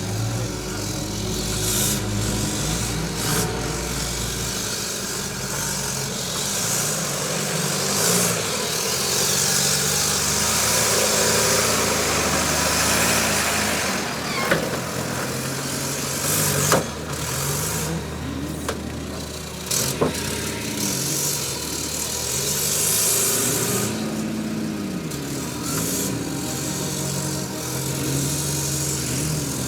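Off-road 4x4 vehicle's engine revving up and down, its pitch rising and falling repeatedly with the throttle. A few sharp knocks come about halfway through.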